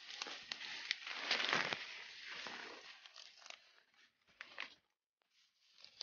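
Footsteps and brushing through dry leaves and forest undergrowth, with twigs crackling and snapping; the rustling dies away about five seconds in.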